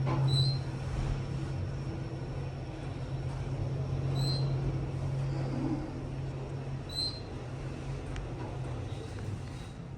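KONE EcoDisc elevator car travelling between parking levels: a steady low hum of the moving car, with three short high-pitched beeps about three seconds apart.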